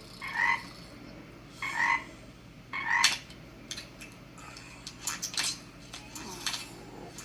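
Three short croaky calls about a second apart, followed by a scatter of small clicks and rustles.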